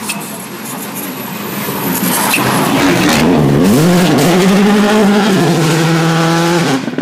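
Subaru Impreza WRC rally car's turbocharged flat-four engine passing at close range, getting louder from about two seconds in. The engine note dips briefly, then rises and holds high at full throttle, and cuts off suddenly near the end.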